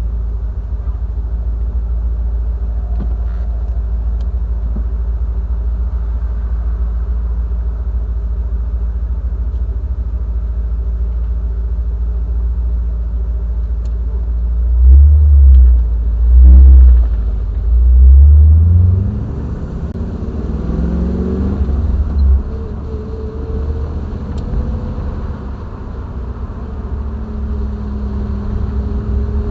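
Triumph TR7's 4.6-litre V8 engine and road noise while driving, a steady low drone. About halfway come three loud low booms, then the engine note rises as the car accelerates and settles into a steady cruise.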